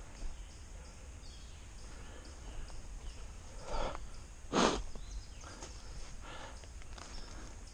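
A hiker scrambling up a steep, wet rock slope: scattered footsteps and scuffs on rock and forest floor, mixed with hard breathing. The loudest sound is one sharp burst about halfway through.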